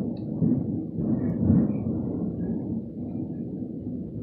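Thunder from a close lightning strike: a sudden loud crack, then a deep rumble that swells about one and a half seconds in and slowly rolls away.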